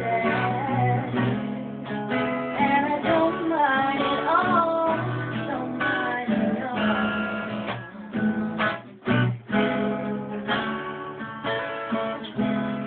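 Acoustic guitar strummed and picked, with a woman singing along over roughly the first half; the guitar carries on alone after that.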